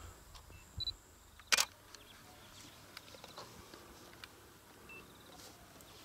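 A single sharp click about one and a half seconds in, a weaker click just before it, and a few faint ticks over a quiet outdoor background.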